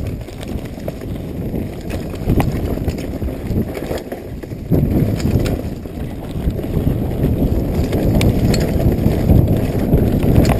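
Specialized Stumpjumper FSR XC full-suspension mountain bike ridden fast over a bumpy dirt trail: a steady low rumble of tyres and wind with scattered knocks and rattles as the bike hits bumps, getting louder about five seconds in.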